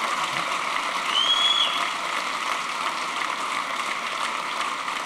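Audience applauding steadily, with a short whistle about a second in.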